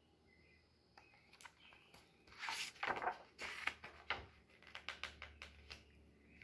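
Pages of a picture book being turned and handled: paper rustling and swishing with a string of soft clicks and taps, loudest about two to four seconds in.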